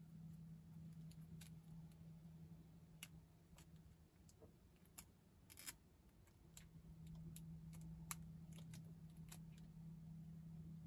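Faint, scattered clicks and ticks of small 3D-printed plastic parts being handled while a rubber band is stretched onto them. Under them runs a low steady hum that drops out for about two seconds in the middle.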